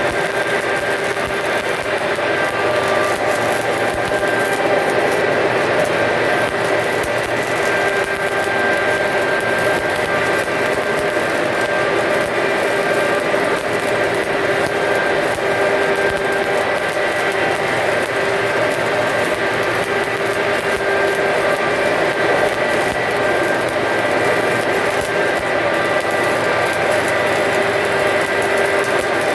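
Stick welding arc crackling and frying steadily over a continuous machine hum.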